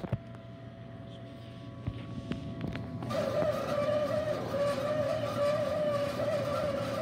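A pellet stove's blower fan starts about three seconds in and runs with a steady whirring tone and a rush of air. Before it, a low hum and a few light clicks.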